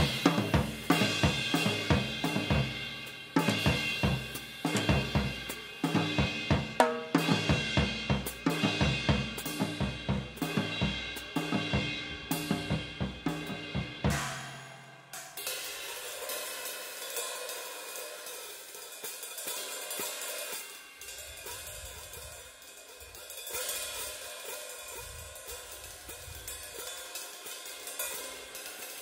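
Drum kit solo: dense, fast drum strokes with bass drum, snare and cymbals for about the first half, then the drums drop out about halfway through, leaving quieter cymbal and hi-hat playing.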